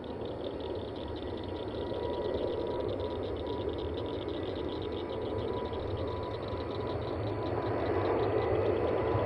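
Jet airliner's engines: a rushing noise with a thin steady whine, growing steadily louder as the aircraft approaches.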